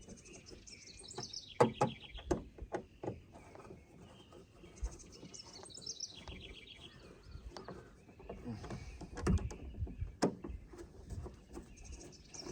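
A songbird chirping in short repeated trills, three bouts, over sharp clicks and knocks of hand work with a screwdriver on a car door; the loudest knock comes a second and a half in.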